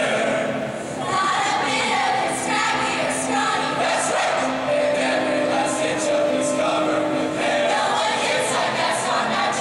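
Mixed choir of men and women singing over musical accompaniment, with long held notes.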